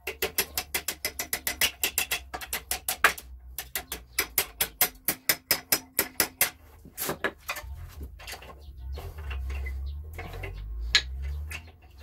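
Hand hammer striking red-hot steel rebar on the jaws of a leg vise in rapid, even blows, pausing briefly about three seconds in. The strikes turn sparser in the second half.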